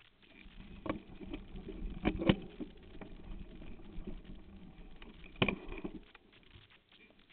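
Rumbling and rattling of a bike-mounted camera moving over rough dirt ground, with several sharp knocks, the loudest about two seconds in and another about five and a half seconds in; it dies down about six seconds in.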